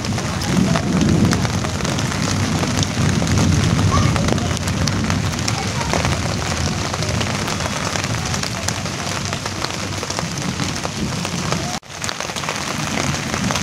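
Steady rain falling on broad leaves: a dense patter of drops over a low rumble, with a momentary break near the end.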